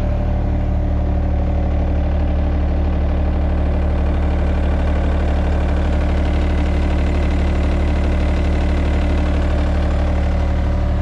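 John Deere 1445 front mower's diesel engine running at a steady idle, its pitch holding even throughout.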